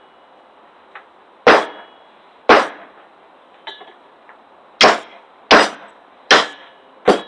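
A 3-pound cross peen hammer striking the back of a hatchet blade to drive it through a log and split it: six sharp metal-on-metal clangs, two about a second apart, then after a pause four more in quicker succession.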